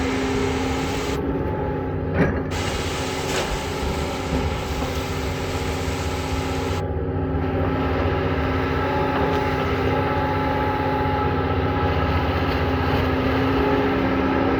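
Diesel engine of a Doosan long-arm excavator running steadily under working load, with a brief knock about two seconds in.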